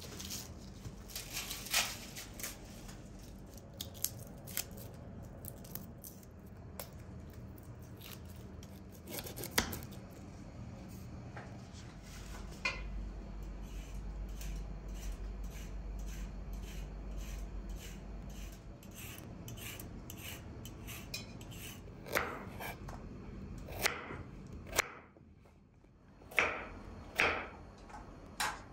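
Fresh broad beans being peeled by hand: a steady run of small clicks and snaps as the skins split and the beans drop into bowls, with a knife cutting on a wooden board. There are a few louder clicks in the last seconds.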